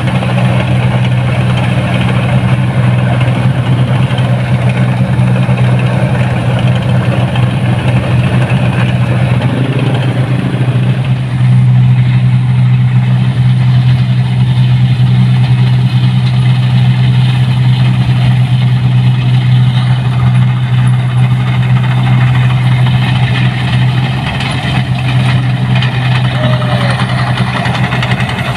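Diesel engine of a 1550 rice combine harvester running steadily as the machine travels, with a deep, even hum; it gets a little louder about eleven seconds in.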